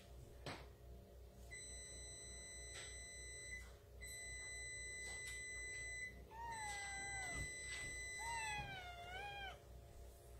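Kitten meowing twice, each a thin, wavering mew of about a second, about six and eight seconds in. A steady high held tone runs in notes of about two seconds under them.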